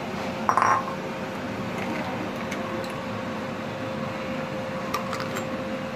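Glass serving bowl handled on a stone counter: a brief clatter about half a second in and a few light clicks near the end, over a steady mechanical hum.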